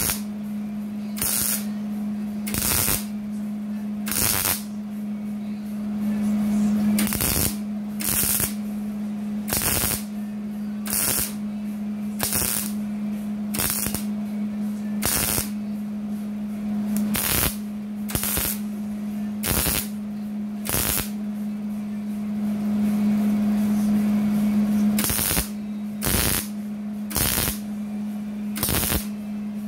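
Wire-feed (MIG) welder laying short stitch welds on a thin steel rocker-panel patch: about twenty brief bursts of arc noise, roughly one a second, with a pause of a few seconds late on, over a steady low hum. An aluminum plate clamped behind the seam acts as a heat sink, so the small gap can be filled without burning through the sheet metal.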